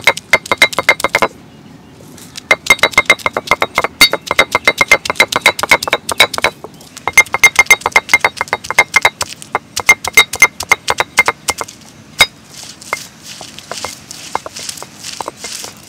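Stone roller pounding garlic and ginger on a flat stone grinding slab (ammi kal): quick runs of sharp stone-on-stone knocks with a ringing edge, in several bursts with short pauses, crushing them coarsely rather than grinding smooth. In the last few seconds the knocking stops and a soft hiss with a few scattered clicks remains.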